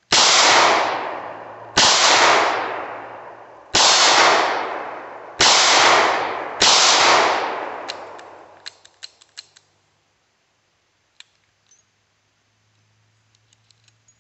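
.38 Special revolver fired five times, single action, each shot with a long echoing tail. After the last shot comes a scatter of small metallic clicks as the revolver is handled.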